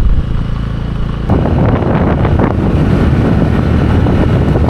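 A motor engine running close by, with wind buffeting the microphone. A steady low hum at first, turning rougher and louder about a second in.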